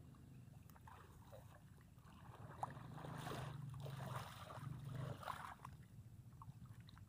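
Water sloshing and splashing around the legs of someone wading knee-deep through swamp water, loudest in the middle and ending about a second and a half before the end.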